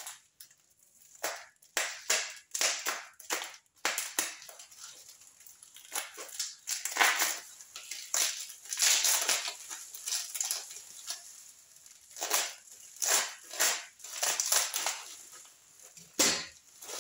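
Clear plastic wrapping crinkling and crackling in irregular bursts as it is pulled off a bottle.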